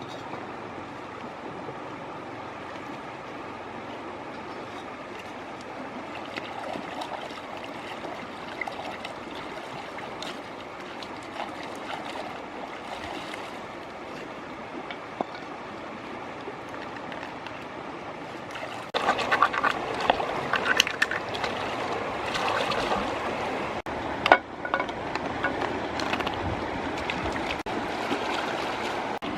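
Running stream water, steady at first; about nineteen seconds in it turns louder and busier, with splashing and many sharp clicks and knocks.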